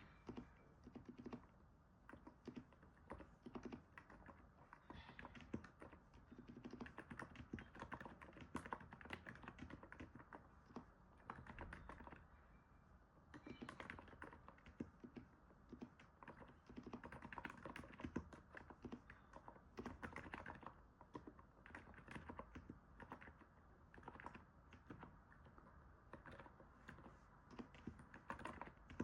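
Typing on a NIZ 68 Pro electrostatic capacitive keyboard: quick, soft, muted keystrokes in runs of rapid clicks, with brief pauses between them.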